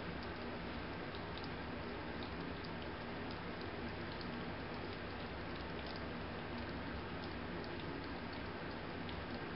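Young kittens licking chicken baby food off a plastic spoon: faint, irregular little licking clicks over a steady hiss and low hum.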